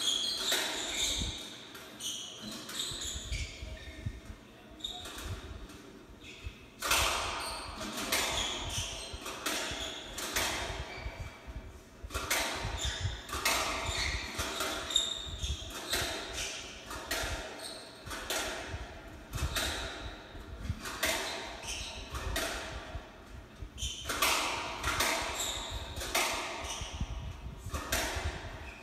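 Doubles squash rally: the ball cracks off racquets and court walls in quick, irregular succession, with the echo of a large court, heard through a TV speaker. The hits come in busy runs with short lulls between them.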